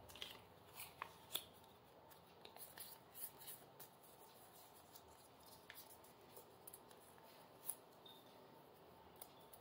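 Near silence with faint, scattered clicks and rustles of a small piece of colour paper being folded and creased by hand.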